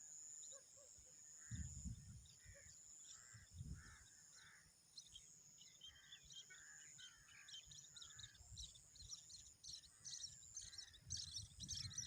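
Faint birdsong: several birds repeatedly chirping and calling, with a few soft gusts of light wind on the microphone.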